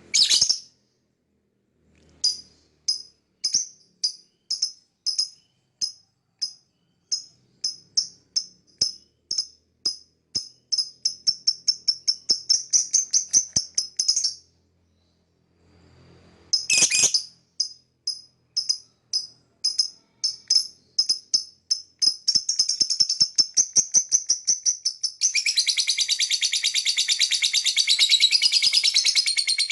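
Lovebird chirping: a loud call, then a run of sharp chirps that speed up into rapid chatter. After a brief pause a second call and accelerating run follow, ending in dense, continuous chattering.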